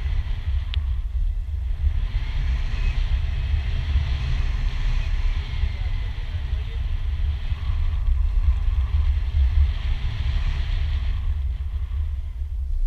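Wind buffeting an action camera's microphone during a tandem parachute descent under an open canopy: a constant low rumble with a fainter airy hiss above it.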